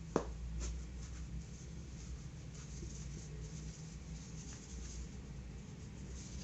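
Faint rustling and scratching of a needle and yarn being worked through a stuffed crocheted toy, with one sharp click right at the start.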